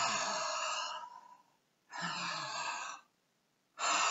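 A man breathing forcefully through his open mouth in a deliberate abdominal-breathing drill: three long, loud breaths, each about a second, with short silent pauses between them.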